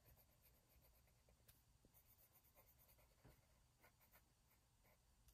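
Very faint scratching of a coloured pencil on paper as it shades in an area, with a few soft ticks from the strokes.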